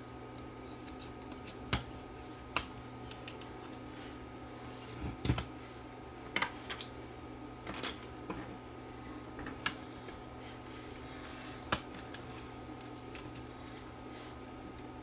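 Irregular small clicks and taps from handling small parts and tools during bench work on a portable cassette recorder, about a dozen scattered through, with one sharper click near the middle. Under them runs a steady low electrical hum.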